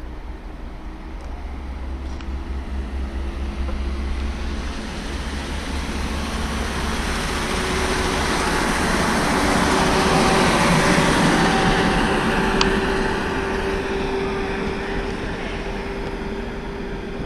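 A train passing through the station: the rumble and a steady tone grow louder to a peak about ten seconds in, then fade.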